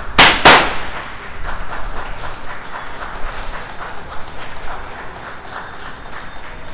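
Two loud bangs about a third of a second apart, then a group of people clapping steadily.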